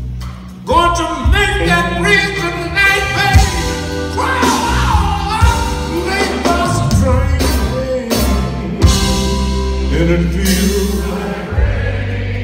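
Live blues band playing: a singer over electric guitar, bass guitar and drums, with occasional sharp drum hits.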